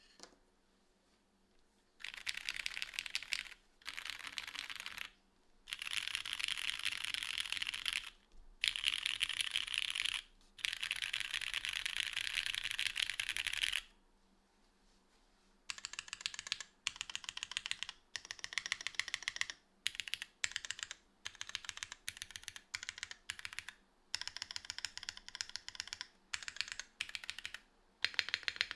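Fast typing on a Ramune 60 mechanical keyboard with Cherry Nixie and RGB Black switches and GMK Black Snail keycaps, in a full-plate, tadpole-mounted case with no foam. It starts about two seconds in with long unbroken runs of rapid keystrokes, then after a short pause about halfway through it breaks into bursts of about a second each with brief gaps between them.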